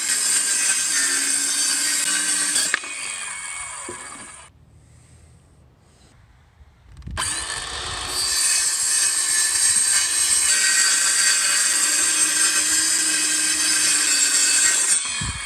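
Handheld circular saw cutting through a wooden headboard panel in two passes. The first cut ends about three seconds in and the blade winds down; after a short pause the saw starts again and cuts steadily until near the end.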